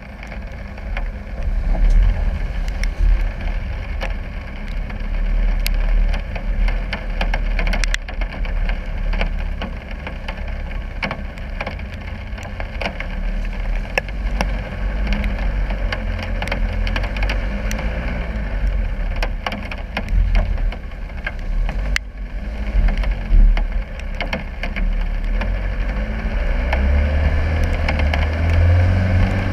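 Land Rover Discovery 300 Tdi's four-cylinder turbo-diesel engine running steadily under load on a muddy off-road trail, pulling harder near the end. Frequent sharp clicks and knocks sound over the engine.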